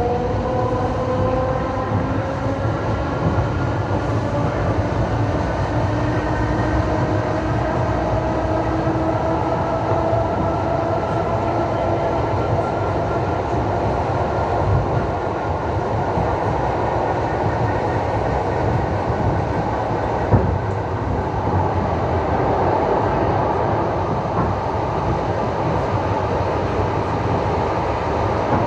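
Train running on the rails, with a whine that rises slowly in pitch over the first dozen seconds as it picks up speed, then a steady rumble. A single sharp knock about twenty seconds in.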